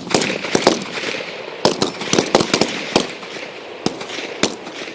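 A line of 7.62 mm FN rifles firing ragged single shots at their own pace, about fifteen sharp cracks in five seconds, some nearly overlapping, each with a short echo trail. This is snap shooting, each rifleman firing as his target turns to face him.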